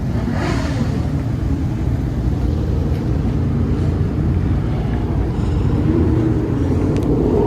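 Steady low rumble of a car engine running, with a brief hiss about half a second in.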